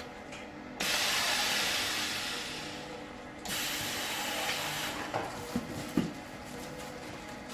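Automatic press taping machine working on a box over a steady machine hum. About a second in there is a sudden loud hissing rush that fades away, a second rush comes at about three and a half seconds, and a few sharp knocks follow.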